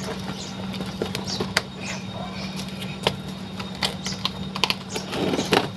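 Irregular small clicks and crackles of soil, roots and gloved hands against a plastic pot as a garambullo cactus is pulled and worked loose, over a steady low hum.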